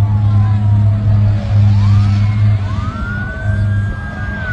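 Emergency vehicle sirens wailing. The pitch slides slowly down, then climbs and holds high before starting to fall again near the end, over a steady low hum.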